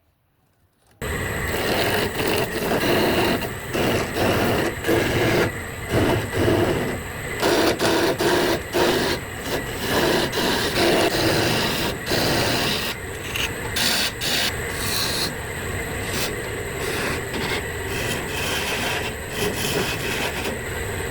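Wood lathe running while a turning tool cuts into the spinning wood, in uneven surging passes at first and steadier later on.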